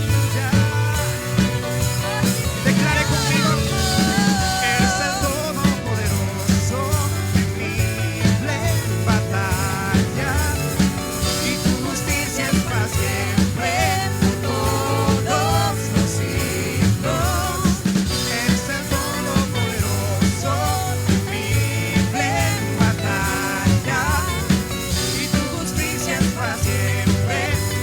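A live worship band playing, with a drum kit keeping a steady beat under bass and a wavering lead melody.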